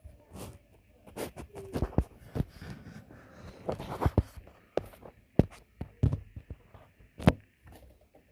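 Irregular knocks, taps and thuds, a few a second at times, the sharpest one about seven seconds in.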